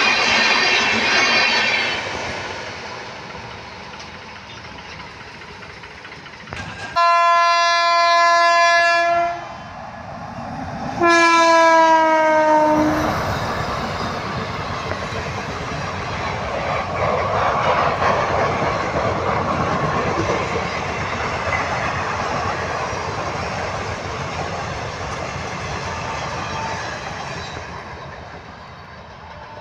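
An Indian Railways electric locomotive sounds its horn twice. The first is a steady blast, and the second drops in pitch as the engine passes. Then comes the rumble and clickety-clack of a rake of ICF coaches running past at speed and fading away. Before the horn, the tail of an LHB-coach train is heard going away at speed with a high whine.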